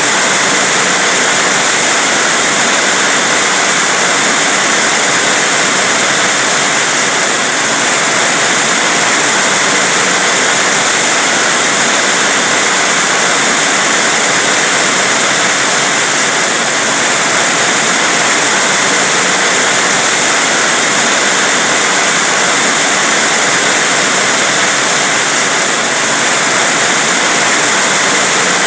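Heavy rain falling, a loud, steady, unbroken hiss.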